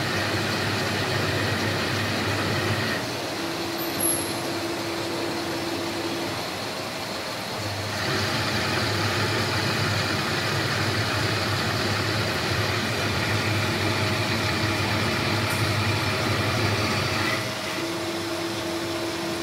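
Semi-automatic light-duty lathe running, its spinning chuck and tool turning a metal part: a steady machine hum that swells and eases as the cut goes on. A steady tone joins in twice for a few seconds.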